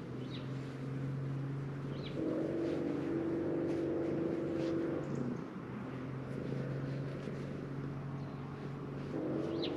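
A steady low drone of several held pitches, stronger for a few seconds at a time, with a few short bird chirps over it.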